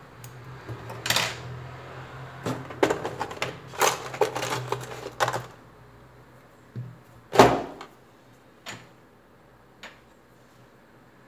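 Clicks and knocks of tools and small parts being handled and set down on a silicone repair mat, a quick clatter in the first half, then a single louder knock about seven seconds in and a few light ticks.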